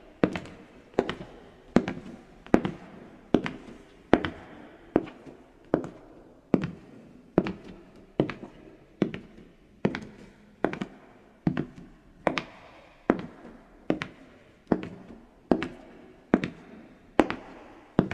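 Footsteps of leather-soled shoes on a soft wooden floor: a steady, unhurried walk, one step a little under every second, each a clear knock with a short ring of the room.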